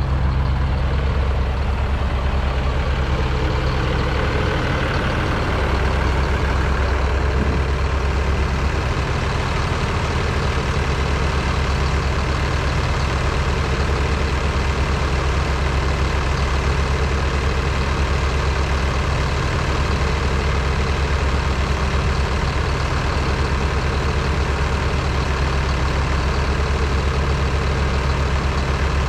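Heavy engine idling steadily, a low even hum with no change in speed.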